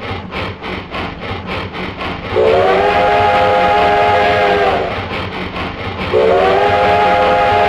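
Steam locomotive sound (a QSI-type sound clip): rhythmic exhaust chuffs at about three a second, then two long blasts of a multi-note chime whistle, the first about two seconds in and the second near the end, with the chuffing running on underneath.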